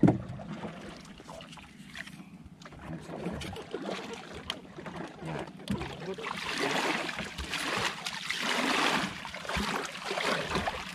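Water sloshing and splashing around a small fishing boat, coming in louder surges over the second half, with a sharp knock at the very start.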